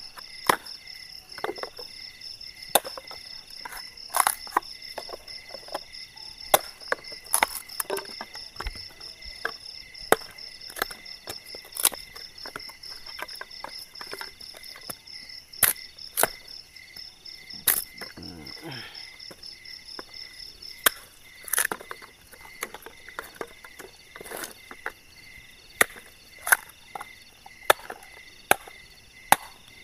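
A blade chopping at a wooden branch for firewood: sharp, uneven strikes about once a second. Underneath, night insects trill steadily in a rapid pulsing chorus.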